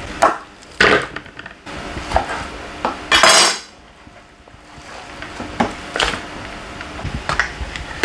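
Kitchen clatter: dishes and cutlery clinking and knocking in a few separate strikes, with a louder half-second burst of noise about three seconds in.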